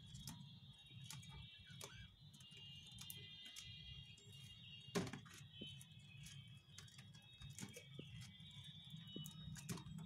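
Faint chatter and scattered clicks and taps from a flock of budgerigars in a wire aviary, with one sharper click about halfway through, over a low hum.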